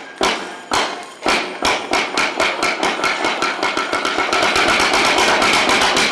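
Kabuki tsuke clappers: sharp wooden strikes on a board, starting about two a second and speeding up into a fast roll that stops abruptly near the end. This is the accelerating beat that marks actors freezing into a closing mie pose.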